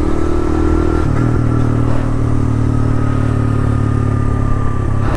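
Suzuki VanVan RV125's single-cylinder four-stroke engine running on the move; its note steps down in pitch about a second in, then holds steady.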